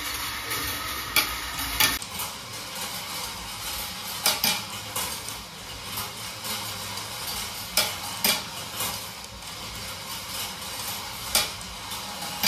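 Glass marbles rolling along the steel-wire tracks of a marble run: a steady rolling rattle broken by sharp clicks every second or few as marbles knock together and drop onto the metal.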